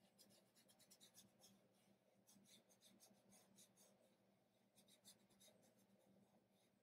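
Faint rubbing of a fingertip on paper, blending chalk pastel in quick short strokes with brief pauses.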